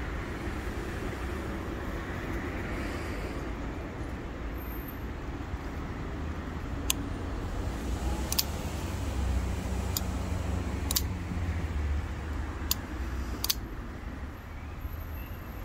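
A folding pocketknife clicking sharply as its blade is worked open and shut, about six clicks in the second half. Under it is a steady low rumble.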